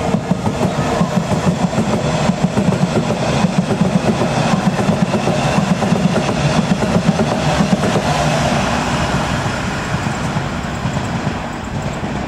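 London Underground S7 stock train running along the track, its wheels clattering rapidly over the rails. The sound fades near the end.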